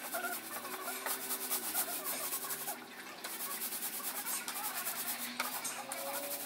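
Paint roller rubbing back and forth over rough concrete floor, spreading two-component floor paint, steady and fairly soft.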